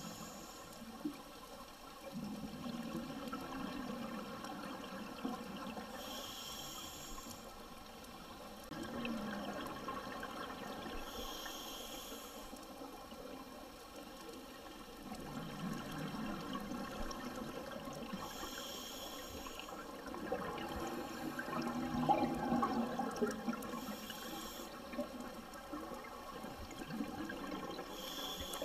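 Scuba diver breathing underwater through a regulator: a short hiss of inhalation about every six seconds, each followed by a longer rush of exhaled bubbles.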